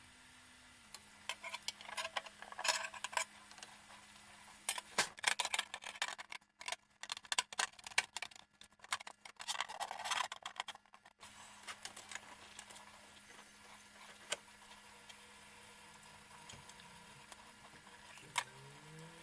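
Bursts of light clicking and clattering, as of hard plastic and metal parts being handled, over a faint steady hum.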